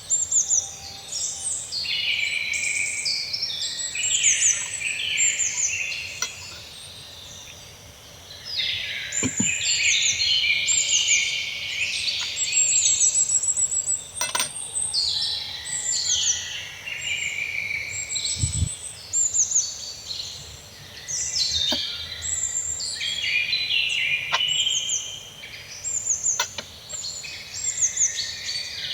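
Many small birds chirping and singing, their calls and quick trills overlapping without a break. A few faint knocks sound underneath, with a low thump about two-thirds of the way through.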